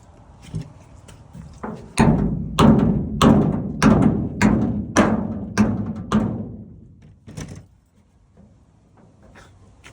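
Repeated heavy hammer blows on metal, about one every half second, each ringing and fading, with a single lighter blow near the end.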